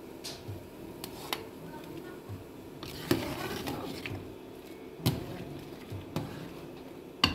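A metal ladle stirring thick simmering pomegranate paste in an aluminium stockpot. There are a few sharp clinks of metal on the pot, the loudest about three and five seconds in, and a brief scraping stir between them, over a steady low hum.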